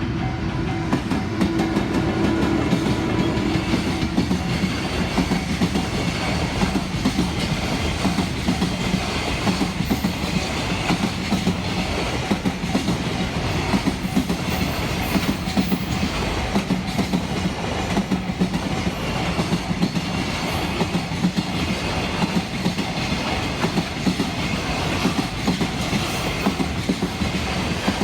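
A train rolling through a multi-track level crossing, its wheels clacking over the rail joints in a dense run of clicks over a continuous rumble.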